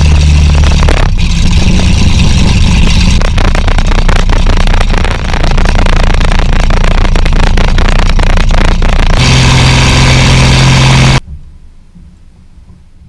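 Corvair 3.0 L air-cooled flat-six aircraft engine running on the ground while its ignition timing is set. It runs loud, with its speed shifting a few times, then stops suddenly about eleven seconds in.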